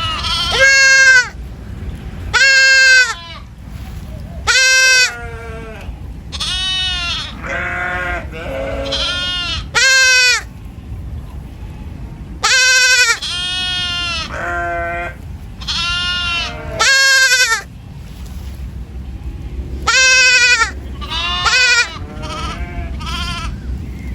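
Goat bleating over and over, loud drawn-out calls that rise and fall in pitch, one every second or two, with softer bleats between the loudest ones.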